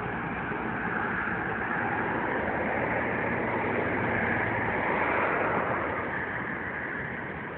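Road-traffic noise from a queue of cars at a border crossing. It is a steady hiss with no distinct engine note, swelling gradually over the middle few seconds and easing off near the end.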